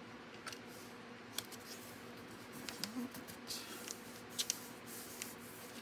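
Cardstock rustling and tapping as the folded flaps of a gatefold card are opened out and pressed shut by hand, with a few sharp little clicks, two close together near the end.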